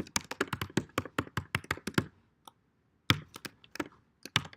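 Typing on a computer keyboard: a quick run of keystrokes for about two seconds, a pause of about a second, then a few scattered key presses.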